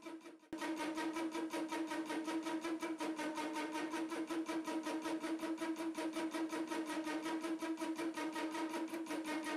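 Optimum hobby metal lathe cutting an aluminium bar at about 300 rpm. The tool chatters in a fast, even rattle over a steady hum, starting abruptly about half a second in.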